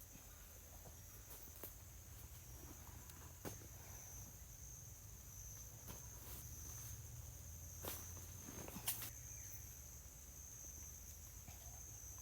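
Insects (crickets) buzzing steadily at a high pitch, with a few sharp cracks, the loudest about eight and nine seconds in.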